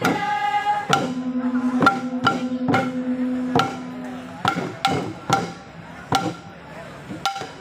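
Papuan tifa hand drums beaten together in a steady beat of about two strokes a second, as accompaniment to a traditional welcome dance. Group singing breaks off about a second in, and a long steady low note is held for a few seconds. The drumming grows quieter in the second half.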